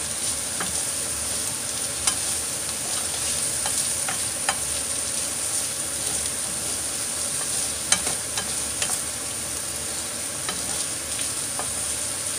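Ground beef and sliced onions sizzling in a frying pan, a steady hiss, while an orange plastic spoon stirs them. The spoon scrapes and taps the pan in a few short clicks, the loudest about eight seconds in.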